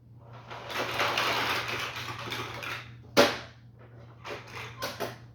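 A pile of toy blocks dumped out, clattering for about two and a half seconds, followed by one sharp knock and a few scattered clicks as pieces settle or are handled.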